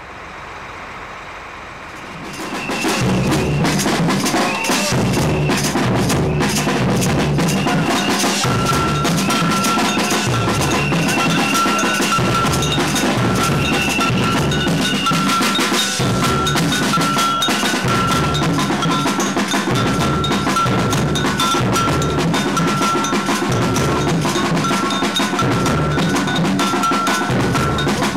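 Snare drum and cymbal played with sticks in a loud, continuous drumming rhythm, with a repeated high ringing note over it. The drumming starts about two seconds in, after a quieter fade-in.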